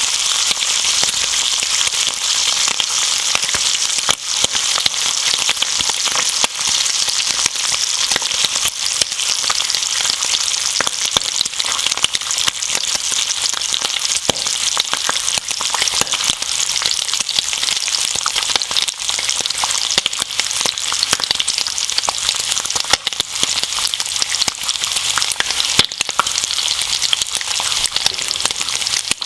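Bacon and eggs frying in a pan: a steady, dense sizzle thick with fine popping and crackling of hot fat.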